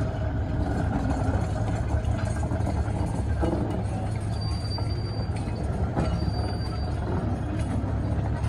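Narrow-gauge diesel locomotive running slowly while shunting: a steady low engine drone over a continuous rail rumble. A faint high-pitched squeal comes in twice around the middle.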